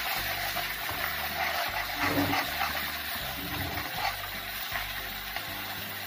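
Ginger, garlic and tomato masala sizzling gently in a kadhai while a spatula stirs it, a little water having been added to loosen it.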